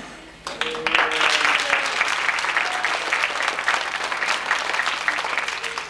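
Audience applauding in a school auditorium: many hands clapping in a dense patter that starts about half a second in and carries on until near the end.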